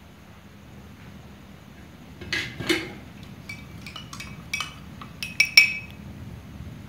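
A metal spoon clinking against metal cookware: a string of sharp, briefly ringing clinks that starts about two seconds in, with the loudest a little before the end.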